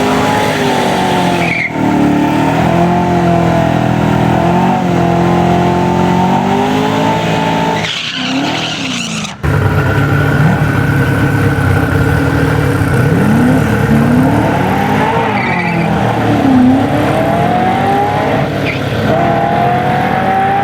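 Car engine running hard under acceleration, its pitch rising and falling, with an abrupt change about nine seconds in.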